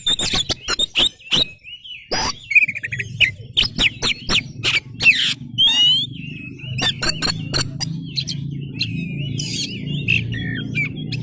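Oriental magpie-robin singing a vigorous, fast song of sweet whistled glides mixed with sharp clicking notes. A steady low hum runs underneath from about three seconds in.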